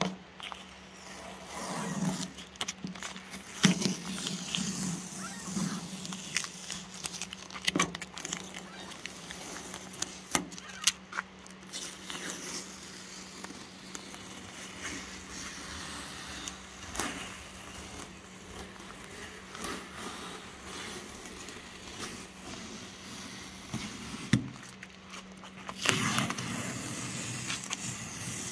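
Painter's masking tape being peeled off a freshly painted riveted aluminium boat hull: irregular crackling and rustling with sharp ticks as the tape pulls away, growing denser and louder near the end.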